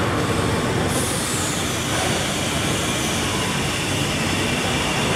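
Steady mechanical rumble and hiss of a factory hall, with a faint falling high tone about a second in.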